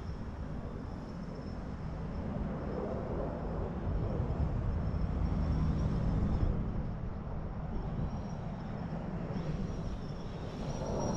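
Quadcopter's electric motors and propellers running in flight, a steady buzz with a faint high whine, rising and falling in level as it manoeuvres. Wind rumbles on the microphone.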